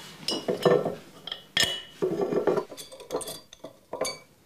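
Glass swing-top bottles clinking together and their wire-clasp stoppers clicking as they are handled. A series of sharp clinks and clicks, the loudest about one and a half seconds in.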